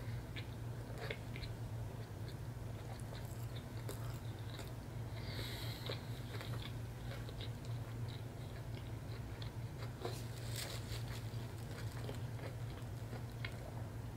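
Close-up chewing and biting: a person eating a Cajun catfish sandwich on cauliflower flatbread, with scattered soft wet mouth clicks, over a steady low hum.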